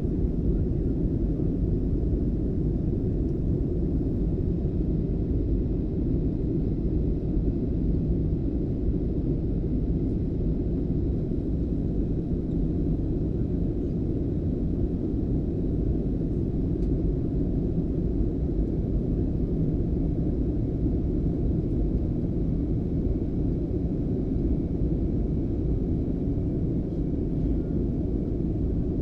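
Airplane noise: a steady low rumble that holds at the same level throughout, without rising or fading.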